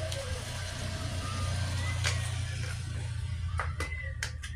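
Motorcycle engine running with a steady low rumble that swells a little mid-way, with a few sharp metallic clicks in the second half.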